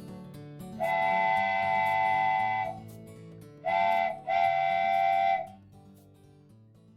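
A chord-like whistle blown three times, a long blast, a short one and a long one, over soft background music.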